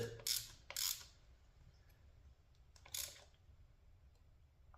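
A few short, sharp clicks from hand tools being handled, spaced out by quiet stretches: about three, the last one about three seconds in.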